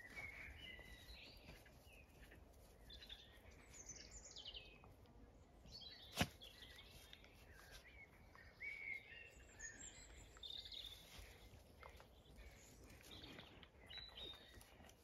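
Faint outdoor ambience with scattered bird chirps, and a single sharp click about six seconds in.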